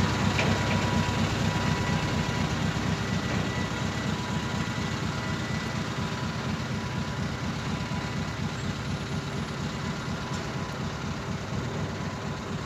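Heavy truck diesel engine idling with a steady, fast-pulsing low rumble and a faint steady whine, slowly growing a little quieter.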